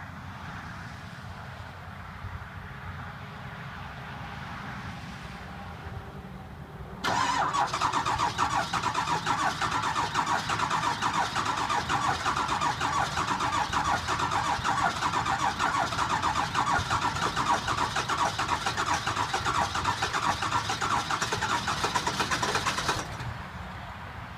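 A 2002 Ford F-350's 7.3L turbo diesel being cranked by its starter in a long, rapid pulsing churn of about sixteen seconds, which then stops abruptly. This is a hard cold start after the truck sat for a week, which the owner puts down to bad injectors. A quieter steady rumble comes before the cranking.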